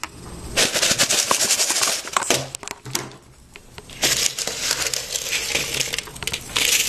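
Scissors cutting thin celluloid ping pong ball halves into small pieces: dense, rapid snips and crackling plastic, in two spells with a short lull in between.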